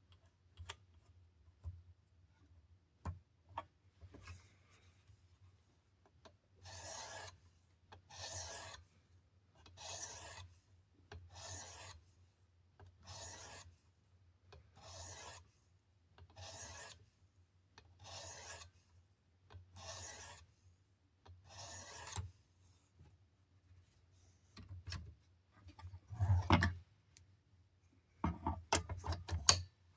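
Knife blade being sharpened on a Work Sharp precision sharpener's 800-grit stone: ten even scraping strokes about one and a half seconds apart. Near the end come a louder knock and a quick cluster of clicks.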